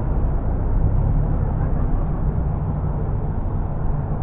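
Steady low vehicle rumble with road noise, even throughout, with no horn or distinct passing vehicle standing out.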